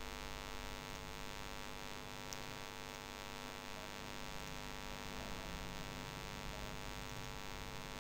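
Low, steady electrical mains hum, a dense row of even tones, over a faint hiss.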